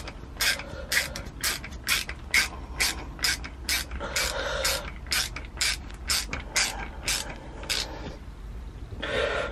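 Rapid, evenly spaced metallic clicks, about two or three a second, as a part on the Sea-Doo jet ski's engine is cranked tight with channel-lock pliers; the clicks stop about eight seconds in, followed by a short rustle near the end.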